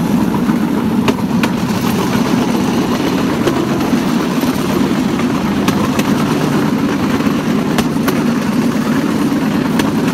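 Bamboo train (norry) running along the track: its small engine runs steadily, with sharp clicks every second or two from the wheels on the rails.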